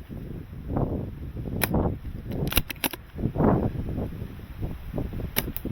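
Airsoft guns firing sharp single shots: one about a second and a half in, a quick run of four near the middle, and two more near the end. Strong wind buffets the microphone throughout.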